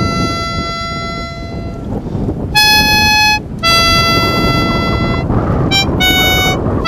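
A red plastic fan horn blown in a string of blasts, each a steady buzzy tone: about five in all, the second higher and louder, a very short toot near the end, over a low rumble.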